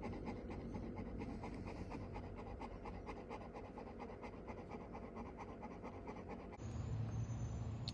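A Labrador-type dog panting quickly and steadily, about five pants a second. A low steady hum comes in near the end.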